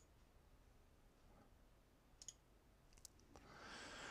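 Near silence with a few faint computer mouse clicks, then a soft breath out near the end.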